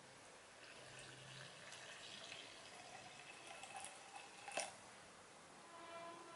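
Water poured in a thin stream from a stainless-steel tumbler into a plastic shaker cup, faint, with a sharp tap about four and a half seconds in.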